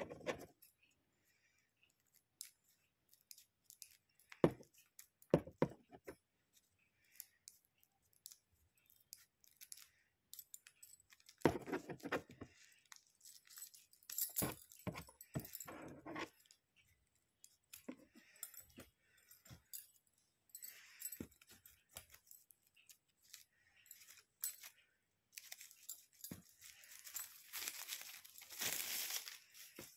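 Scissors snipping and small pieces of paper rustling and crinkling as hands cut and handle them, in scattered short bursts, with a longer spell of rustling near the end.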